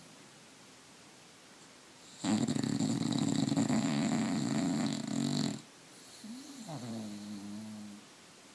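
Bulldog snoring in its sleep: one long, loud snore starting about two seconds in and lasting over three seconds, then a softer snore with a wavering pitch.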